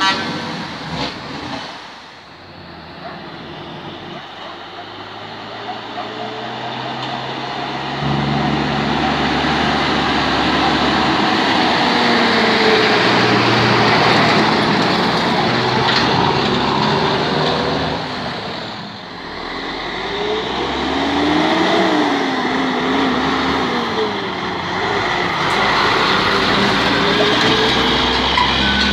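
Heavy tractor-trailer trucks driving past with engines and tyres running. The sound swells sharply about eight seconds in, dips briefly, and a second truck builds up after it, its engine pitch wavering as it goes.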